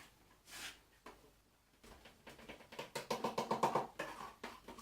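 Dry ingredients being tipped into a blender jug: a short rustling pour about half a second in, then from about two seconds a fast run of light taps with a hollow ringing note, getting louder toward the end.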